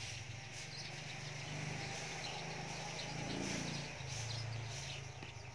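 Outdoor tree ambience: birds chirping in short high calls over a steady low hum.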